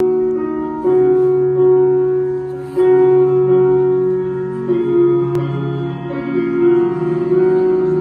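Instrumental music: slow sustained chords that change about every two seconds.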